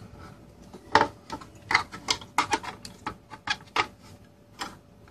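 Hard drive dock's circuit board being pressed back into its plastic enclosure, making an irregular run of about a dozen sharp clicks and taps.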